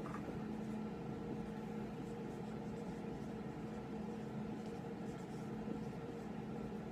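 Marker pen writing on a whiteboard, faint scratchy strokes, over a steady low room hum.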